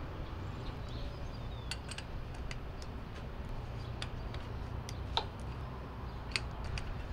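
Scattered light metallic clicks and taps from a wrench and cutting tool being worked into the tool holder of a pipe facing machine, as the piggyback bevel tool is fitted. Two sharper clicks stand out after about five and six seconds, over a steady low rumble.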